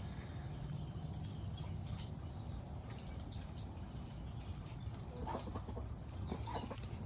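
Muscovy ducks at a pile of food, with a few short, soft sounds from the birds about five to seven seconds in, over a steady low background rumble.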